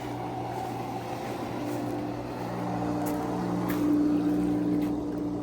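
Pool filter pump running with a steady motor hum, growing louder toward a peak about four seconds in. The owner hears in it that the pool needs more water, a sign the pump is drawing air with the water level low.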